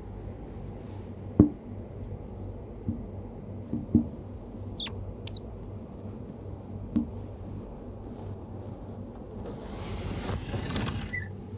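A few sharp knocks, the loudest about a second and a half in, and a brief high, squeaky chirping about five seconds in, over a steady low hum. A rushing noise swells near the end.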